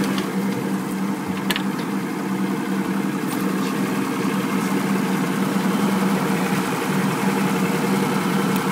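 Boat's outboard motor idling steadily, an even hum that holds the same pitch throughout.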